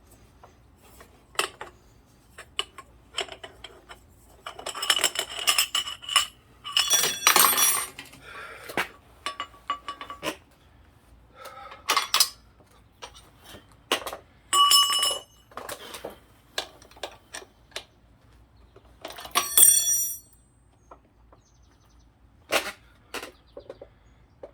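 Metal tools and bicycle pedal parts being handled: a run of clicks and knocks with several louder ringing metal clanks.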